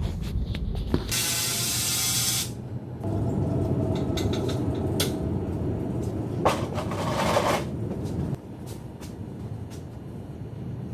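Two bursts of hissing from pressurized gas escaping, the first about a second in and the loudest, the second shortly after the middle, with a quieter hiss and light clicks in between.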